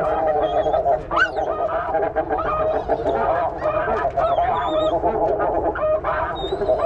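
A dense chorus of snow goose calls, many honks overlapping without a break.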